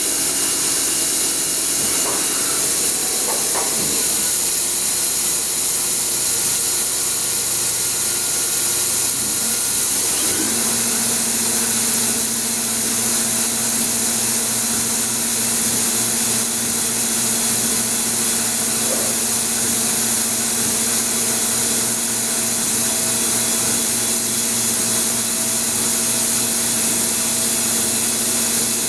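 Star SA-16R Swiss-type CNC lathe running: a steady hiss with several machine hums under it. There are short pitch glides in the first few seconds and again about ten seconds in, after which a steady low hum holds.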